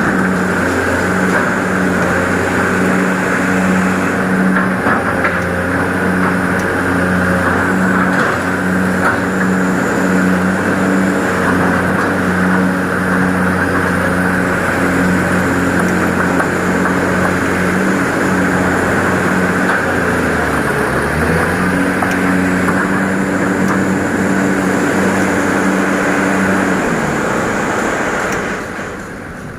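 Excavator's diesel engine running steadily at working speed. About twenty seconds in its note dips briefly and comes back up, and near the end the engine sound falls away.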